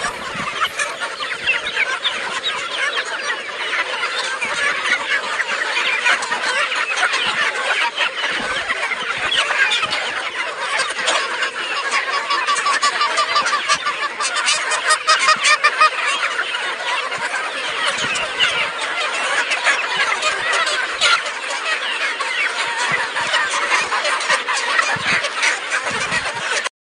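A large flock of free-range chickens clucking, many short calls overlapping into a dense, continuous chatter.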